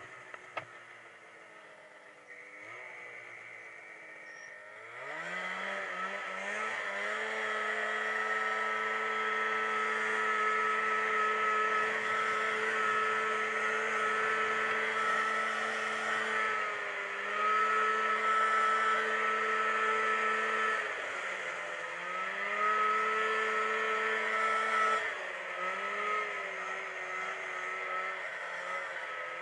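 Snowmobile engine heard from the rider's seat: low at first, with a couple of sharp knocks at the start, then revving up about five seconds in to a steady, high cruising note. The note dips twice as the throttle eases and drops lower near the end.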